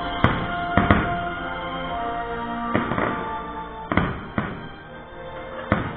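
A fireworks show's music soundtrack playing, with firework shells bursting in sharp bangs about eight times, the loudest within the first second and a quieter spell shortly before the end.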